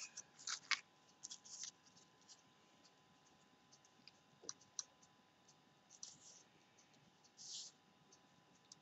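Faint paper handling: light clicks and rustles of card and paper pieces being picked up and laid down on a wooden tabletop, busiest in the first second or so, with a couple of soft rustles near the end.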